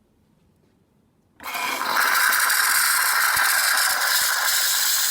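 Gaggia Classic espresso machine's steam wand opened about a second and a half in: a sudden, loud, steady rush of steam with a fine rattling edge, steaming very powerfully, a sign that the freshly serviced boiler and steam valve work properly.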